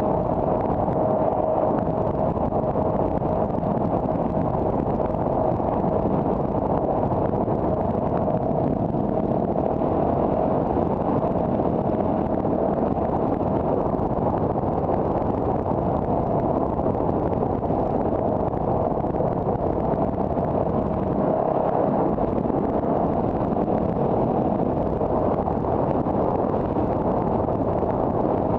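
Steady driving noise of a car on the road: even tyre and engine rumble with a steady mid-pitched hum running through it.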